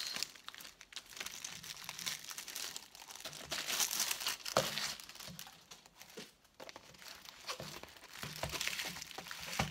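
Paper and plastic wrapping crinkling in irregular bursts as a rolled diamond-painting canvas is handled and unrolled, loudest about four seconds in and again near the end.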